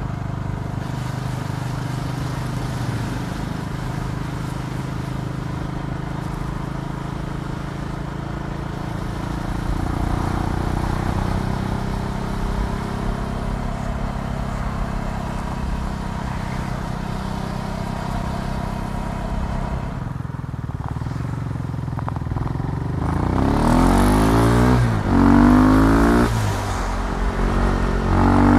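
KTM Duke 390's single-cylinder four-stroke engine running at a steady speed, then, from a little over 20 seconds in, revving up louder in several rising pulls, one after another.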